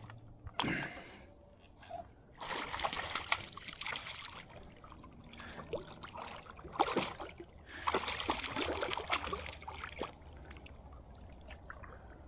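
Bowfishing arrow and line being hauled back by hand through shallow water, in three bouts of splashing and trickling with small clicks of the line.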